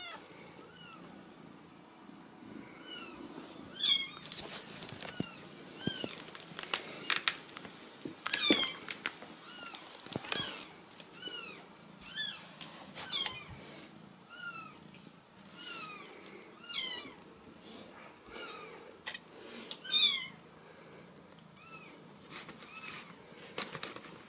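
Newborn Ragdoll kitten mewing over and over in short, high-pitched cries, a few of them louder. These are the distress calls of a kitten that has strayed from its litter and mother.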